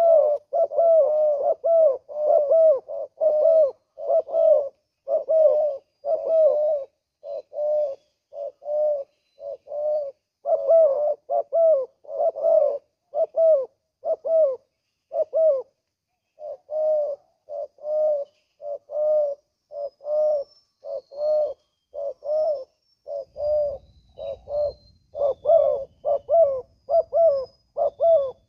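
Spotted doves cooing: a long, even run of short low coo notes at about two a second, breaking off briefly about halfway through. Faint high chirps of small birds sound above it.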